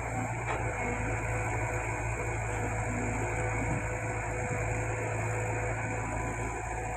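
Heavy earthmoving machine's diesel engine running steadily, with a constant low hum.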